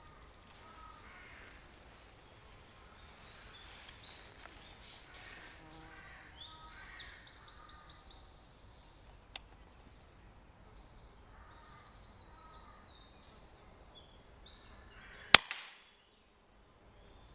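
A small bird singing two bursts of rapid high trills, then a single sharp crack of a moderated pre-charged air rifle shot near the end, the loudest sound.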